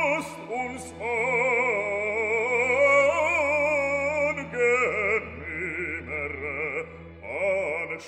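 Operatic singing with a wide vibrato over classical music: background music, not the boat.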